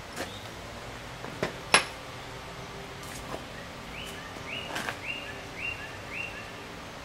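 Sharp clicks and knocks of a steel bolt and hand tools being handled and set down on a wooden workbench, the loudest a little under two seconds in. From about four seconds in come five short, evenly spaced high chirps.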